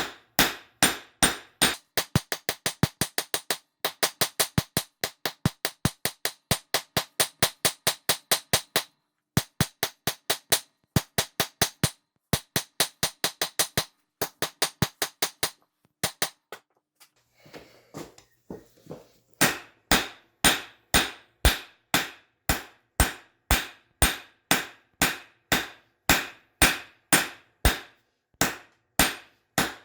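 Hammer striking a hot railroad spike on an anvil, drawing it out, with a ringing clang at each blow. Fast blows at about four a second for the first half, a short pause a little past halfway, then slower, heavier blows at about two a second.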